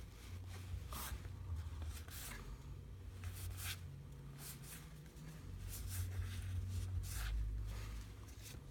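Soft swishes of cardboard trading cards being handled and slid against each other, about eight brief rustles over a low steady hum.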